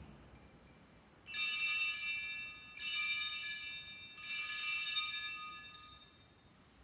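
Altar bells (Sanctus bells) rung three times, about a second and a half apart, each a bright jingling ring that fades out. They mark the elevation of the chalice at the consecration.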